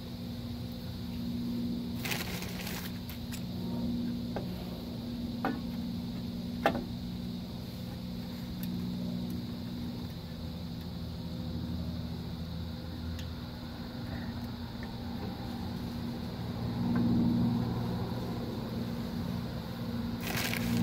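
Scattered light metallic clicks, with one sharp clack about six and a half seconds in, as the shoes and springs of a Dodge Caravan's rear drum brake are handled, over a steady low hum. Brief rustling noise comes about two seconds in and again near the end.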